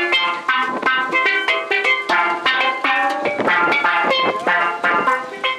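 A pair of steel pans played with mallets: a quick, continuous run of ringing struck notes, several a second.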